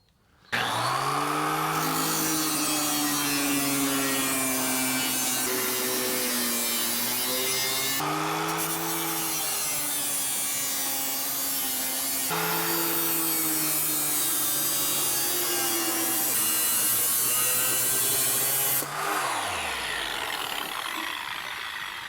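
Power tool cutting the sheet-steel patch panel for a transmission tunnel: a steady motor whine over a loud, high hissing rasp, its pitch sagging at times under load. Near the end the tool is released and spins down with a falling pitch.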